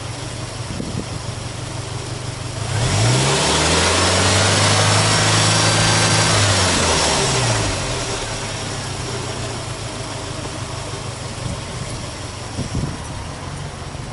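Subaru Impreza WRX STi (GDB, F-type) turbocharged flat-four boxer engine idling, then revved up about three seconds in, held at raised revs for about four seconds, and let fall back to a steady idle.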